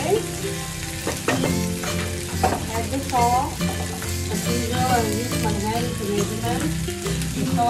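Okra sizzling as it stir-fries in a non-stick pan, with a wooden spatula knocking against the pan a few times in the first seconds.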